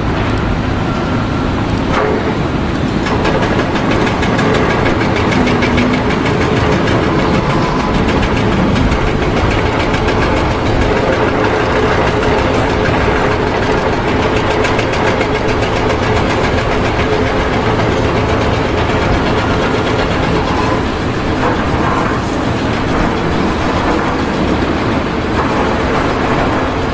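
Steady, loud machinery noise, like an engine running, with a few faint steady tones and no clear change.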